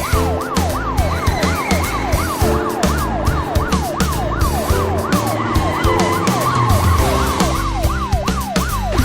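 Siren sound effect wailing in quick repeated sweeps, about two to three a second, over backing music with a steady beat.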